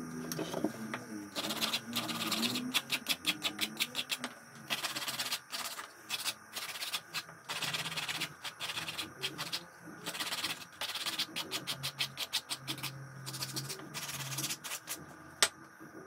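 Rapid scraping strokes in bursts of about a second with short pauses, a workpiece being worked by hand, with a single sharp knock near the end. Faint background music underneath.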